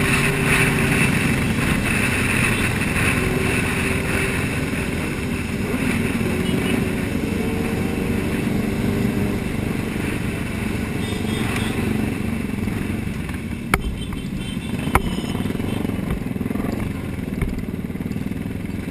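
A pack of motorcycles riding together at speed, many engines running at once. Two sharp knocks come a little past the middle.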